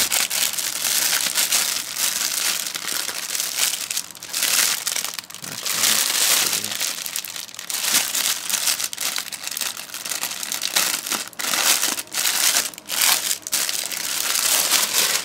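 Thin plastic bag crinkling as a folded dress inside it is handled and turned over, in uneven rustling surges.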